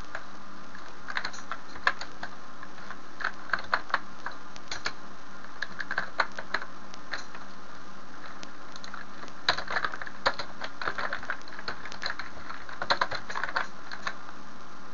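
Typing on a computer keyboard: short runs of keystrokes with pauses between them.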